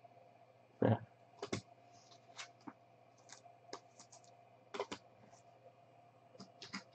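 Light clicks and taps from trading cards being handled and set down, with one louder thump about a second in.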